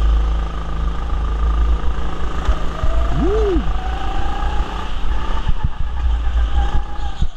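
Go-kart driving fast around an indoor track, heard from on board: a heavy rumble and rattle, with a faint whine that climbs slowly as the kart picks up speed. About three seconds in a short squeal rises and falls, and a few sharp knocks come near the end.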